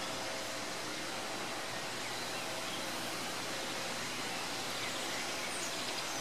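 Steady outdoor background noise, an even hiss with no distinct events, and a few faint bird chirps near the end.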